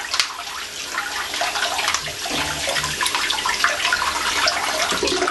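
Tap water running from a faucet into a ceramic sink basin, splashing steadily and unevenly over a plastic container of blueberries being rinsed.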